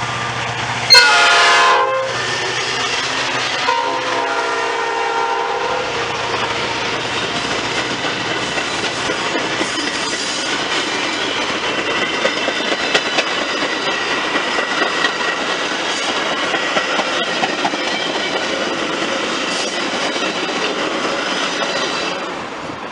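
Train horn sounding a loud blast about a second in and a quieter one around four seconds, then the steady rush of the train passing, with wheels clicking over the rail joints, until it falls away near the end.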